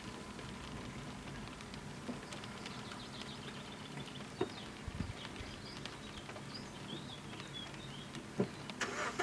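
Light thunderstorm rain by open water: a steady hiss with scattered raindrops tapping close by, a few faint bird chirps around the middle, and a quick run of louder taps near the end.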